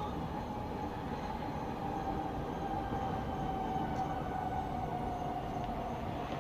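Distant town noise at night: a steady low rumble with a long, drawn-out high tone that sinks slightly in pitch through the middle.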